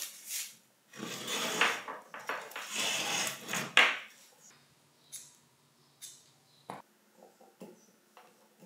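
Hand work on a drill armature being rewound with new wire: about three seconds of scraping and rustling, then a scatter of light clicks and taps.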